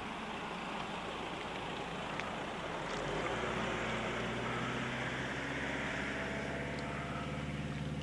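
A motor's steady drone comes in about three seconds in and holds at an even pitch, over a constant hiss of wind and water.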